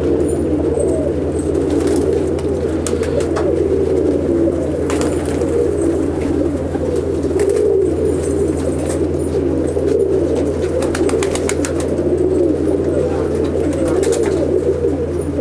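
A loft full of Andhra high-flying pigeons cooing together in a continuous, overlapping chorus, with scattered short clicks and scuffles among the cages.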